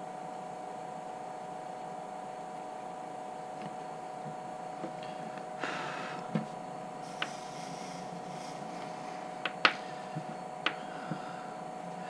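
Steady electrical hum, with a few light clicks and knocks from about halfway through as the soldering iron and tools are handled on a workbench. The sharpest click comes near the end.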